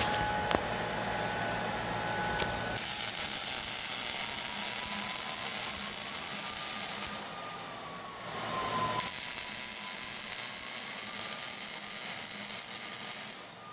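Wire-feed (MIG) welding arc crackling and hissing in two runs of about four seconds each. The first starts about three seconds in and the second follows a short break, over a faint wavering whine.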